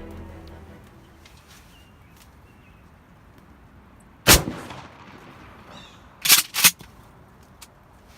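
A shotgun fires once about four seconds in, a single loud blast that rings off for about half a second. About two seconds later come two more sharp loud knocks in quick succession.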